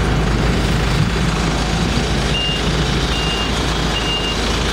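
A heavy machine's engine running steadily, with its reversing alarm starting about halfway through: short high beeps, roughly one a second.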